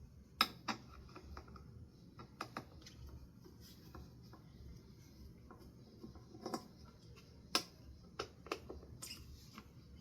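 Irregular sharp clicks and light knocks from ceiling fan parts being handled, about a dozen spread unevenly, the loudest about half a second in and near 7.5 seconds.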